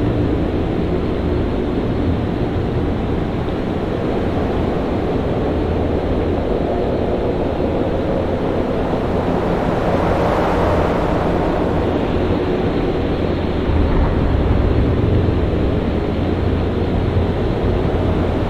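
Storm at sea: a steady, heavy rumble of wind and surf, with a surge of hissing noise swelling up about halfway through.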